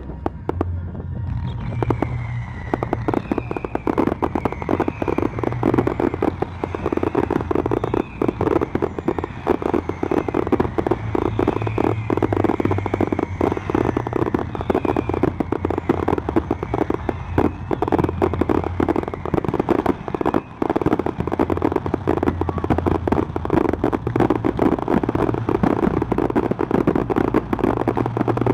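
Fireworks display in full swing: a dense, rapid string of bangs and crackles, with faint high whistles through the first half.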